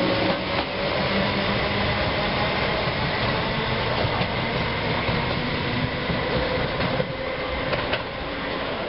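Class 321 electric multiple unit pulling away from a station: a whine from the traction motors rises at first, over the rumble and rattle of the wheels on the rail. A couple of sharp clacks come near the end, and then the noise fades as the train draws off.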